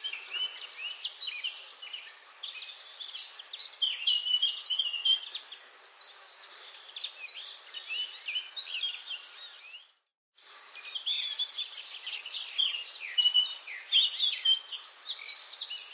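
Small birds chirping and twittering busily, many short overlapping calls. The sound cuts out completely for a moment partway through, then resumes.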